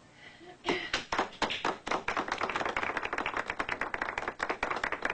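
Audience clapping, starting suddenly less than a second in after a short lull and going on steadily.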